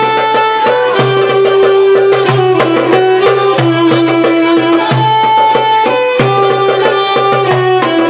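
Live violin playing a stepping belly-dance melody in sustained notes over a steady drum beat, with several hits a second.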